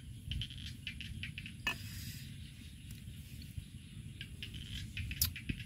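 A person chewing food with scattered short mouth clicks and smacks, two of them sharper, about 1.7 s and 5.2 s in, over a steady low background rumble.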